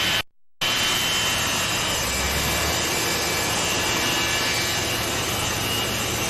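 Steady jet engine noise from airliners taxiing on the apron, with a faint high whine over a broad rush. The sound drops out abruptly for about a third of a second just after the start, where the camcorder recording breaks, then resumes at the same level.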